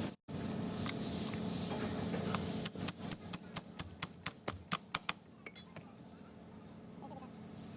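A steady hiss, then a quick run of about a dozen sharp metal clinks, roughly four a second, from metal transfer case parts being handled, before it goes quieter.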